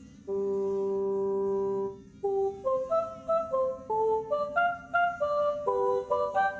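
Gentle flute-like melody: one long held note, then a lilting run of short stepped notes.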